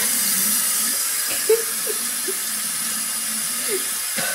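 Kitchen sink faucet running in a steady stream, with a few short splashy sounds as a person drinks from the stream. A single short knock about a second and a half in.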